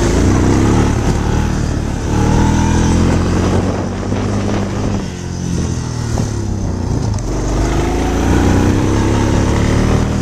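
Small vehicle engine running hard at high revs, its pitch rising and falling as it speeds up and eases off, about a second in and again near the end.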